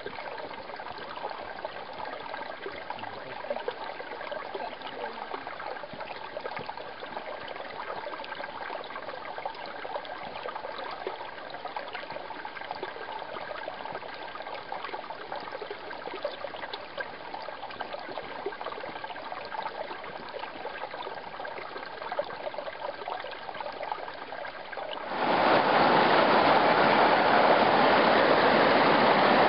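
Mountain creek water flowing over flat rock ledges, a steady trickling rush. Near the end it switches abruptly to the much louder, fuller rush of a whitewater stream.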